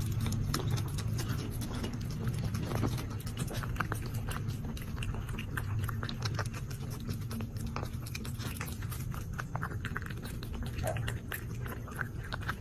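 A cat eating from a bowl: many small, irregular crunching clicks of chewing. A steady low hum runs underneath.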